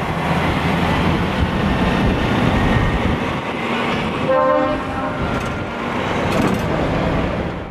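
Engines of trucks and vans running as they pull out, with one short horn blast, a chord of several tones lasting about half a second, a little over four seconds in.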